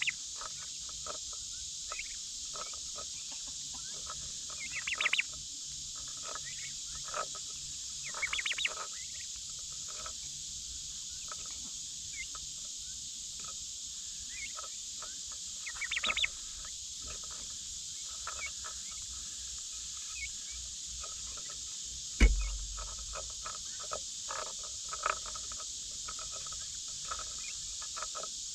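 Steady outdoor chorus of insects with a few short chattering bird calls about 5, 8 and 16 seconds in, light clicks scattered throughout, and one loud thump about 22 seconds in.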